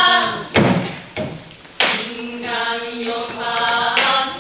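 A group of women singing a Korean pansori tanga in unison, marked by three sharp drum strokes. The singing drops away briefly after the first stroke and comes back after the second.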